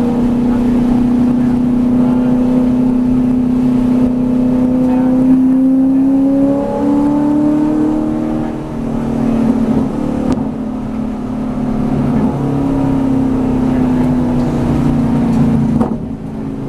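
V8 Supercar's V8 engine heard from inside the cockpit, pulling hard with its note rising. About halfway through it lifts off for braking, then comes back on power, and it eases off again near the end as the car slows for a corner.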